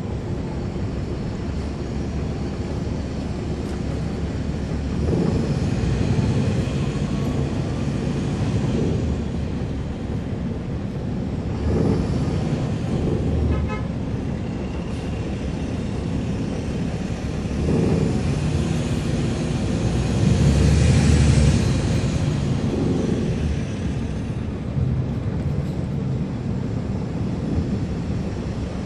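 Caterpillar C13 ACERT diesel engine of a NABI 40-foot transit bus, heard from the rear seats inside the bus. It runs steadily and swells louder several times as the bus pulls and accelerates, with road and body noise under it.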